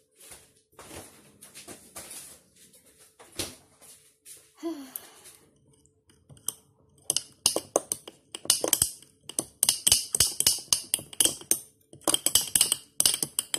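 A long metal spoon stirring fast in a glass jar of iced coffee, clicking rapidly against the glass. A few scattered soft knocks come first, and the rapid clinking starts about halfway through.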